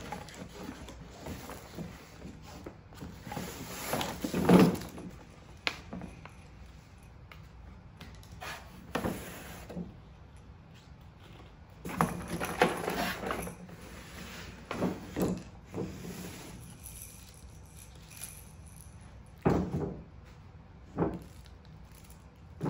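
A cardboard box being unpacked by hand: fabric play-mat parts and plush toys pulled out and set down on a tile floor, in irregular bursts of rustling and scraping, the loudest about four seconds in.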